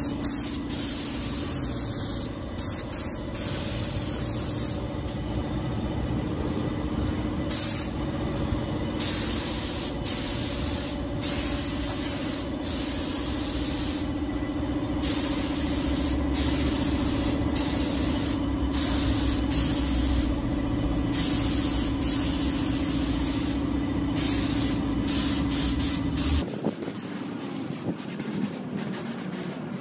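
Compressed-air paint spray gun hissing in repeated bursts as the trigger is pulled and released, spraying paint onto a metal frame, over a steady machine hum. The hum stops abruptly near the end.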